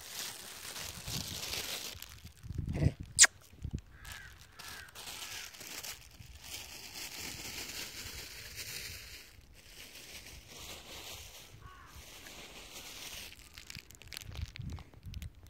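Close rustling and rubbing handling noise from a handheld phone with a finger resting over it, with one sharp click about three seconds in.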